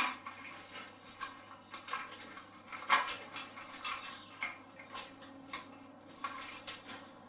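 Irregular small clicks, taps and rustling of hands handling a motorcycle's handlebar wiring, plastic connector blocks and tools, with a sharper knock at the start and another about three seconds in.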